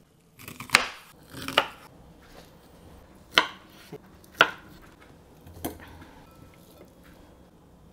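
Chef's knife chopping down through sea cucumber onto a bamboo cutting board: four sharp single knocks spread over the first four and a half seconds. A fainter knock comes about five and a half seconds in.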